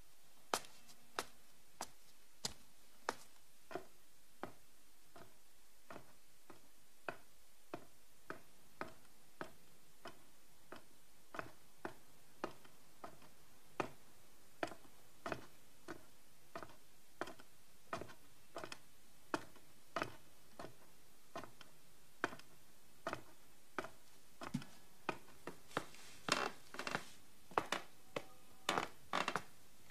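A series of short, sharp clicks, spaced about half a second to a second apart and uneven, coming thicker and louder in quick clusters near the end.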